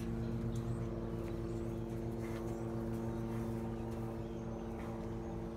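Steady low mechanical hum, like an idling engine or running machinery, holding one even pitch throughout, with a couple of faint soft knocks.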